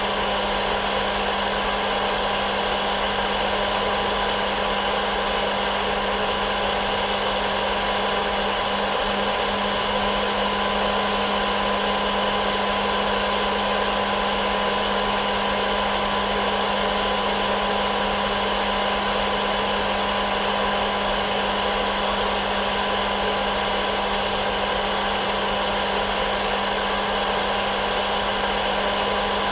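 Hair dryer running steadily, unchanging: an even rushing hiss with a low hum and a couple of faint steady whine tones.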